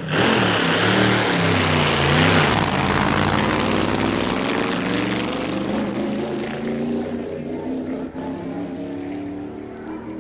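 Supercharged front-engine dragster's engine running hard at high revs. Its pitch wavers up and down over the first few seconds, then it runs on more steadily while slowly fading.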